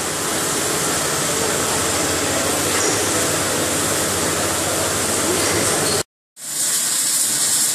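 Water spraying steadily inside a rain-water test chamber for forklift lights. About six seconds in it cuts off abruptly, and a steady hiss from a robotic welding cell follows.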